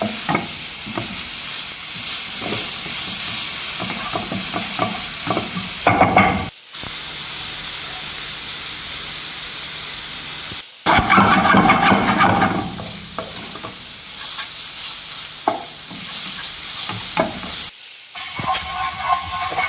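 Food sizzling as it fries in coconut oil in a pan, with a spatula stirring and scraping against the pan. The sizzle breaks off abruptly three times for a moment.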